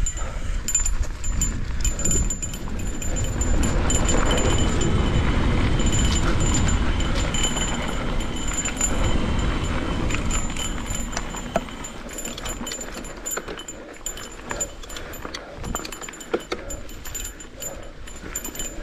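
Cannondale Scalpel full-suspension mountain bike descending a rough trail. Wind and tyre rumble swell strongly for several seconds, then ease about two thirds of the way through. Throughout, the bike rattles and clicks over bumps, and a thin high buzz from the rear hub comes and goes as it coasts.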